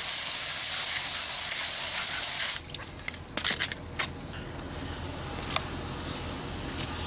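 Garden hose pistol-grip nozzle spraying water onto a car's alloy wheel, a steady hiss that cuts off suddenly about two and a half seconds in, followed by a few brief hissing spurts.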